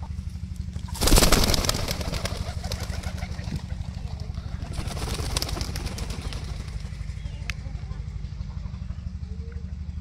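Pigeons fluttering their wings: a loud flurry of flaps about a second in that fades quickly, and a weaker one around five seconds. A steady low engine hum runs underneath.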